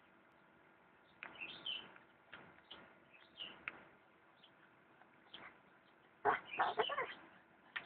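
Birds chirping in scattered short, high calls, with a louder cluster of chirps about six seconds in.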